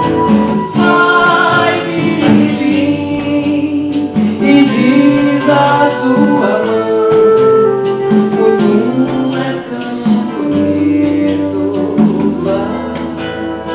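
A song performed live, with voices singing a melody over plucked acoustic guitar.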